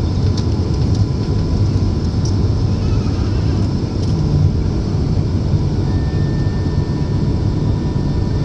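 Steady drone of an aeroplane in flight heard from inside the cabin, mostly a low rumble, with a thin steady whine above it and a second, higher whine joining about six seconds in.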